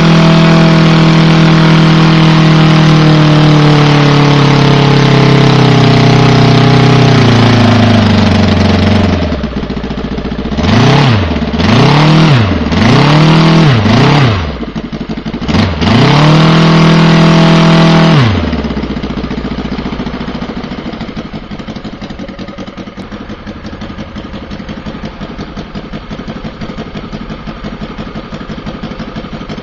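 VT 85 2R 85cc inline-twin four-stroke gasoline model aircraft engine running with a wooden propeller: at high revs at first, throttled back about seven seconds in, blipped up and down four or five times, held high again briefly, then dropped to a steady idle for the second half.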